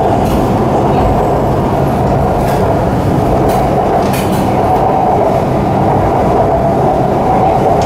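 Shanghai Metro Line 9 train running at speed, heard from inside the carriage: a steady, loud rumble of wheels on rail with a faint steady tone above it.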